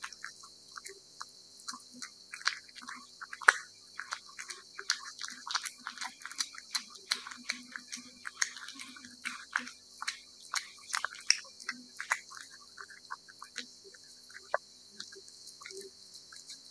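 A domestic cat eating wet cat food: irregular wet smacking, licking and chewing clicks, several a second, with one sharper click about three and a half seconds in. A faint steady low hum lies underneath.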